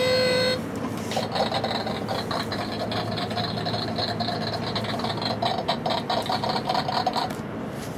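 Cheap electronic sound-effects box playing a long, raspy, buzzing noise effect through its small speaker. It starts about a second in and cuts off shortly before the end.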